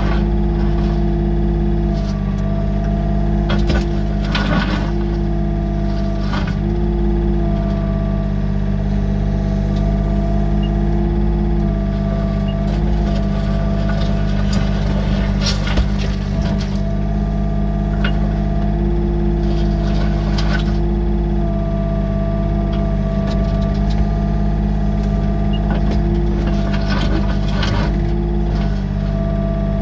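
Yanmar excavator's diesel engine running steadily, heard from inside the cab. Over it the hydraulics whine on and off, a tone that starts and stops many times as the boom and bucket are worked, with a few short knocks of the bucket and gravel.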